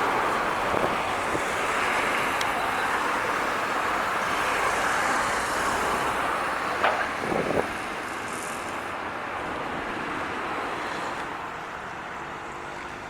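A truck passing on a road: engine and tyre noise that fades away, with a couple of short knocks about seven seconds in.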